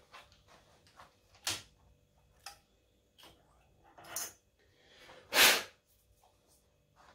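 Metal clicks and knocks as a collet block is unclamped from a milling-machine vise and lifted out, the mill spindle stopped. A louder scraping rush about half a second long comes about five and a half seconds in.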